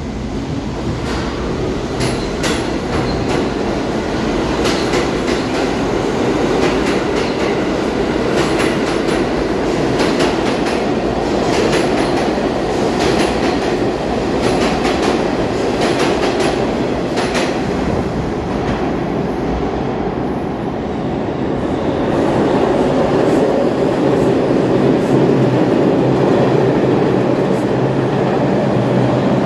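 New York City subway trains in an underground station. A local train pulls out, its wheels clicking over the rail joints and its rumble running steadily. About twenty seconds in, an express train runs through on the centre track and the rumble swells again.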